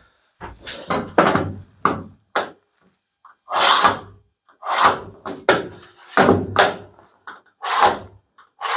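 A metal scriber scratching a cut line into a van's steel body panel: a series of short scraping strokes, one to two a second, with brief pauses between them.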